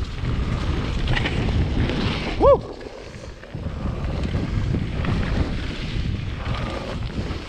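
Wind buffeting an action camera's microphone over the rattling rumble of mountain bike tyres on a gravel trail. About two and a half seconds in there is a short squeal, the loudest sound, after which the rumble drops off for about a second before picking up again.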